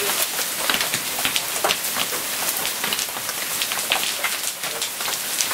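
Hailstorm with heavy rain: a steady hiss of rain, dotted with many short sharp ticks of small hailstones striking.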